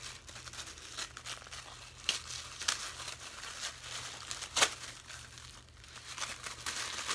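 Paper wrapping on a small gift parcel being torn open and crinkled by hand, an irregular run of rustles and sharp crackles, the loudest about halfway through.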